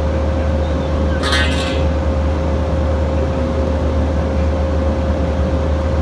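Compact farm tractor's engine running steadily as it drives slowly, with a brief high squeak about a second in.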